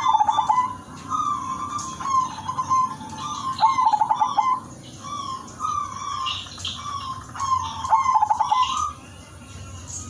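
Zebra dove (perkutut) cooing: three song phrases about four seconds apart, each with a quick rolling stutter of notes followed by clear, evenly spaced coos.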